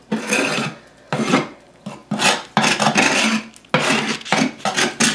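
Knife blade scraping dried droppings off a cockatiel nest box, in a series of rasping strokes that become shorter and quicker near the end.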